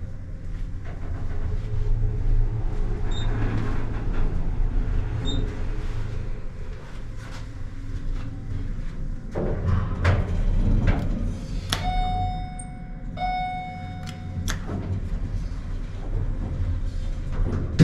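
An elevator running with a steady low hum and scattered clicks, then its chime sounding two identical tones about twelve seconds in, each lasting about a second.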